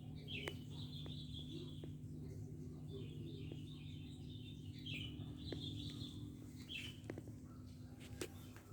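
Small birds chirping in short repeated bursts over a steady low hum, with a few faint clicks.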